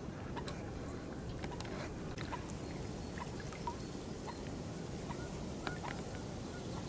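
Water trickling and lapping around a mute swan moving on a canal, with scattered small clicks and faint short chirps over a steady low rumble.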